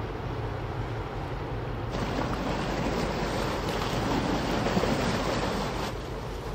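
Passing cargo ship: a steady low engine drone under the rush of water. Between about two and six seconds in a louder, brighter rushing hiss takes over.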